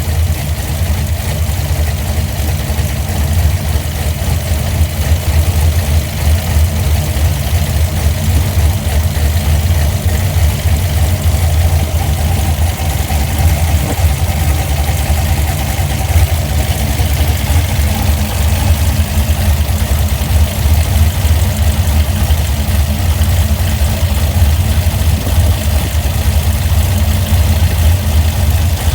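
Engine fitted with a Holley Sniper EFI throttle body idling with an uneven pulse, which the owner takes for a misfire.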